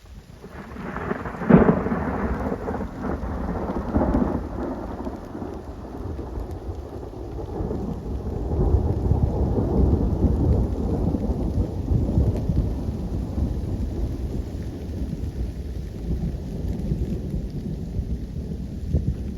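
Thunder in a rainstorm: a sharp clap about a second and a half in, a second one near four seconds, then a long low rumble that swells and slowly dies away, over the steady hiss of falling rain.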